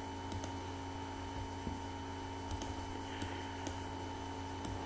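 Steady low electrical hum, with a few faint, sharp clicks of a computer mouse as the map view is zoomed.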